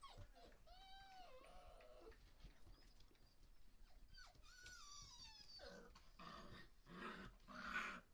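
Five-week-old puppies whining: a few high, rising-and-falling whimpers in the first couple of seconds and a falling whine about four seconds in, then louder, harsher yelps, the last one the loudest.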